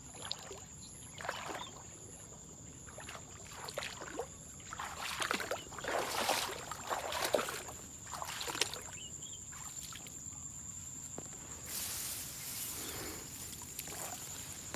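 Shallow water sloshing and grass stalks rustling as someone wades and pushes through flooded tall grass, in irregular swishes a second or two apart. A steady high-pitched tone runs underneath.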